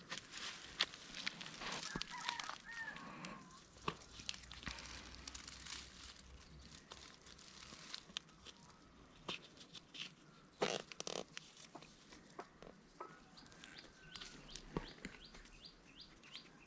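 Faint scattered clicks and rustles of hands at work, with a few short bird calls in the background and a quick run of ticks near the end.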